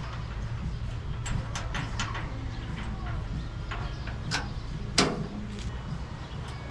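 Scattered clicks and knocks from a car's door hardware being fitted and handled, with one sharp click about five seconds in, over a steady low hum.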